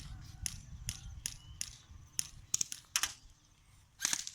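Airsoft guns firing sharp single shots at irregular intervals, about ten in all, then a quick cluster of shots near the end.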